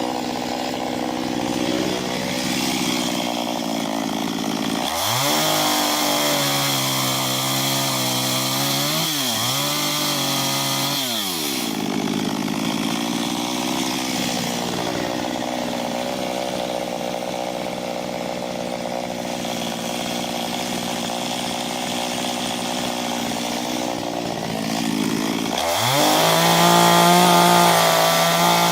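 Small two-stroke chainsaw with a 15-inch bar running while cutting into an ash trunk. Its engine pitch rises as the throttle opens about five seconds in, dips and recovers twice around ten seconds, settles lower for a long stretch, then rises again near the end.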